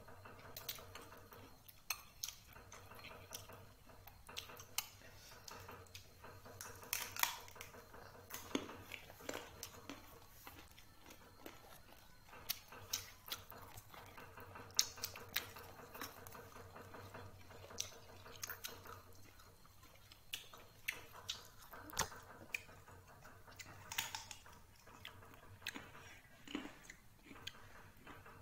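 A person eating: chewing and biting food, with scattered short clicks and light clatters as the food and plate are handled, over a faint steady hum.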